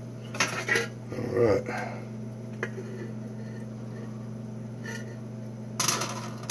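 A metal frying pan of melted candle wax handled with a few light ticks over a steady low hum. Near the end comes a loud rough scraping and rustling as the pan meets the aluminium-foil-lined sink to pour.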